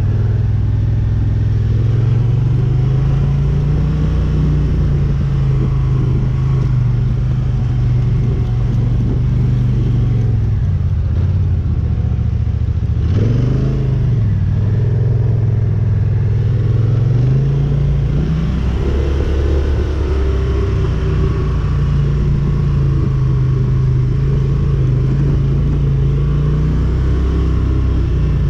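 ATV engine running under way, its pitch falling and rising as the throttle is eased off and opened; about halfway through it drops low briefly, then picks back up.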